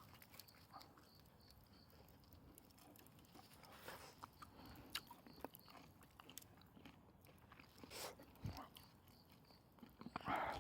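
Faint, scattered crackles and small clicks, with a few louder brief rustling scrapes, the loudest near the end.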